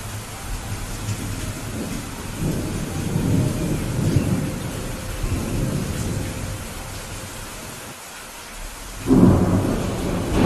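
Steady rain with thunder rumbling low through the middle, fading briefly, then a sudden loud thunderclap about nine seconds in.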